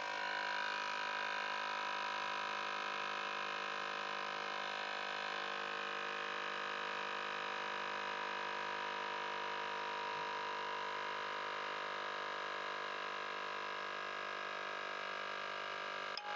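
Portable electric tyre inflator's compressor running with a steady, even hum, pumping air into a car tyre that read zero pressure.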